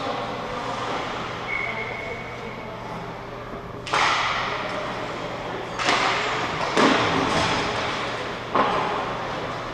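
Four sharp knocks from ice hockey play, a puck or stick striking the boards, each ringing out in the big arena, the first about four seconds in and the last near the end. A steady low hum runs underneath.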